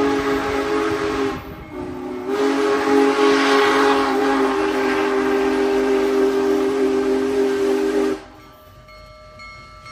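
Union Pacific Big Boy No. 4014's steam whistle blowing a long chord, with a short break about a second and a half in, then sounding again until it cuts off sharply about eight seconds in. After the whistle stops, the 4-8-8-4 steam locomotive's running rumble and steam hiss can be heard.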